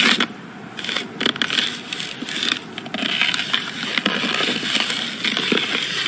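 Snow crunching and scraping, a steady rough rasp full of irregular crackles, loudest right at the start.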